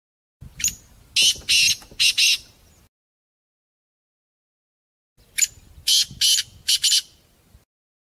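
Partridge calling: two bouts of harsh, rasping notes, four or five short notes in each, the second bout starting about five seconds in.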